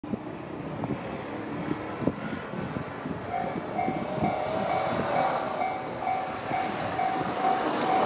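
Japanese railway level-crossing alarm (Tobu's 'C' tone) starting up a little over three seconds in and ringing a steady repeating electronic ding about twice a second, as the crossing warns of an approaching train. Before it starts there are only a few scattered knocks.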